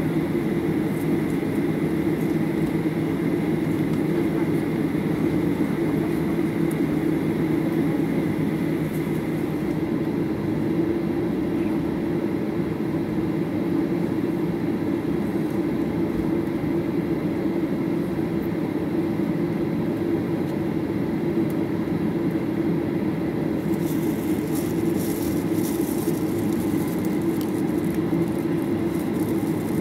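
Steady cabin noise inside a Boeing 737-800 on the ground: the even hum of its CFM56 engines at idle and the air-conditioning, heard from a rear window seat. Faint crackling clicks join it over the last few seconds.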